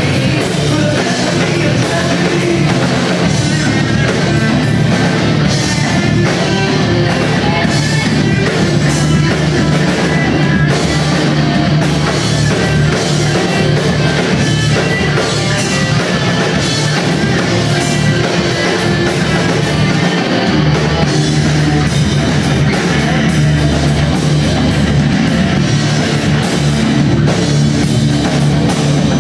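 Live rock band playing loudly: electric guitars, bass guitar and drum kit.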